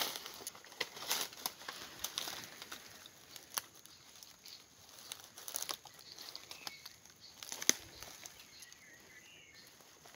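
Footsteps crunching and rustling through dry bamboo leaf litter and twigs, in irregular crackles, with one sharper snap about three-quarters of the way through.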